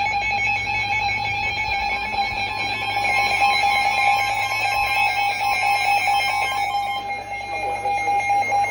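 Emergency Alert System attention signal: a steady, unbroken two-tone alarm that announces an emergency alert is about to be read.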